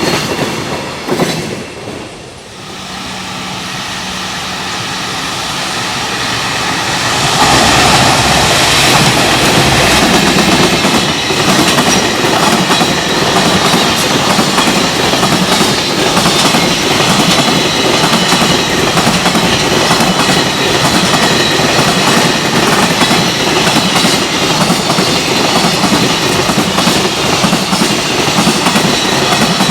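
A Japanese electric freight train passing close by: the locomotive approaches with a rising motor hum, then from about seven seconds in the long string of freight wagons clatters loudly over the rail joints without letting up.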